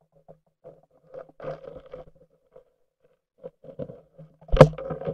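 Muffled knocks and rumbles from an underwater camera being jostled under the ice, with one loud thump about four and a half seconds in.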